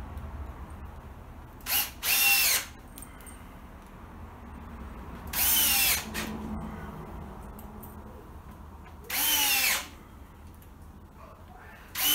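Power drill run in three short bursts of about half a second, each dropping in pitch near its end, working screws into a plastic beehive box; a fourth burst starts right at the end.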